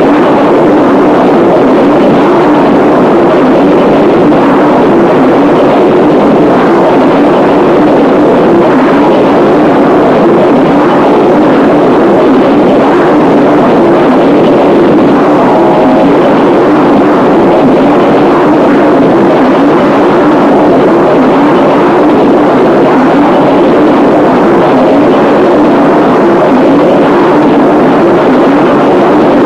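Harsh noise music: a loud, steady wall of dense distorted noise, thickest in the low middle range with little deep bass, barely changing throughout.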